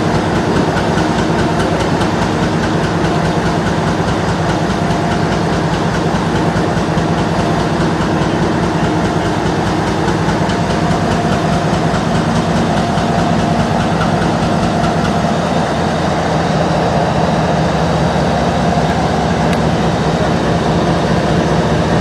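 Canadian Pacific 9375, a GE ES44AC diesel-electric locomotive, idling with a loud, steady low rumble and pulse. The deepest part of the rumble thins out a little past the halfway point.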